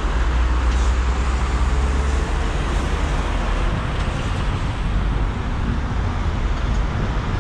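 Motorway traffic noise: articulated lorries drive past on the road below, a steady rumble of engines and tyres.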